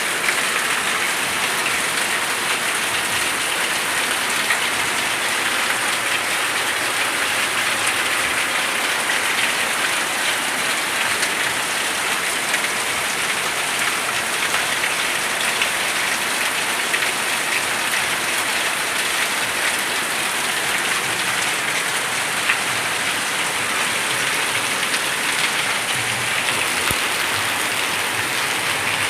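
Steady rain falling and pattering on surfaces, an even hiss with no let-up.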